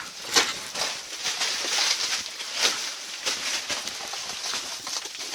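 Footsteps crunching on loose rock and gravel, about one step every three-quarters of a second.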